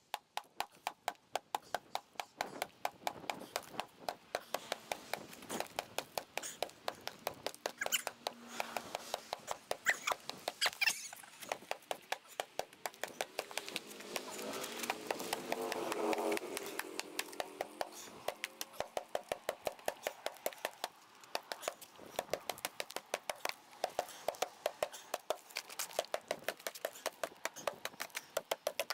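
Hammer blows on the concrete-like fireproof fill inside a steel safe's cut-open side panel, struck rapidly and steadily at about three blows a second, chipping the fill away.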